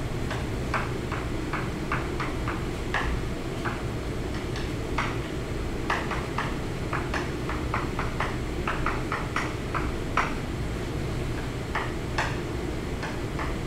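Chalk on a blackboard during writing: irregular short taps and clicks as letters are struck and stroked, over a steady low background hum.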